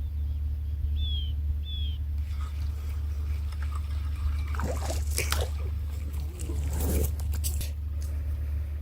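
Water trickling and splashing over a steady low rumble, with two short high chirps about a second in and a spell of louder splashing and clatter in the middle.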